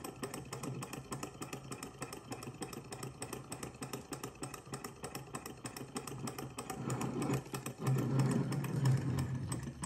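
Small hot-air Stirling engine model running on an alcohol burner, its pistons, linkage and flywheel making a fast, light ticking clatter, a little louder near the end. It is on its first run, having just started, with the moving parts still a little tight.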